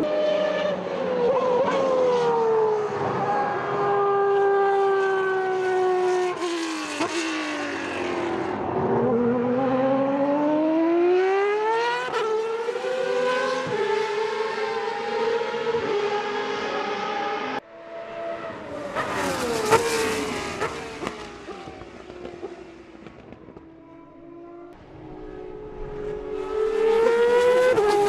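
Superleague Formula Panoz DP09B race cars' 4.2-litre V12 engines at speed, revving high and dropping in pitch through downshifts, then climbing again through the gears. About two-thirds in the sound cuts abruptly to a car passing, which fades away before another car's engine rises near the end.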